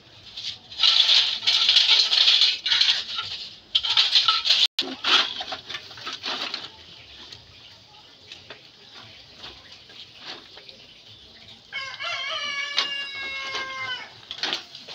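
Loud bursts of rustling and scraping as scrap and a woven plastic sack are handled, in the first half. Near the end a rooster crows once: one long call of about two seconds.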